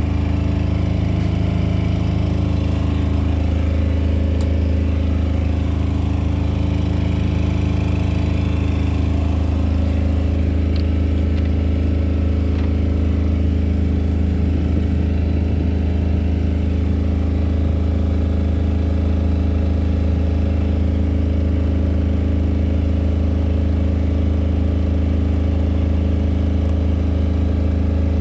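Electric bar bending machine running unloaded, a steady low hum from its motor and gearbox.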